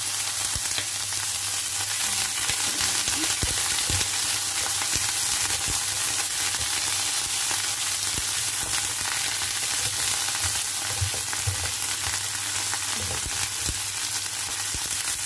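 Garlic chive stems and smoked duck sizzling steadily in hot oil in a frying pan while a silicone spatula stirs them, with scattered soft knocks and scrapes of the spatula against the pan.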